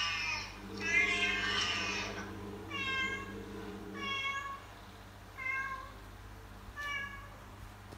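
Cat meowing: a mother cat's call to her kittens. A close run of meows fills the first two seconds, then four single meows follow over a second apart, growing fainter.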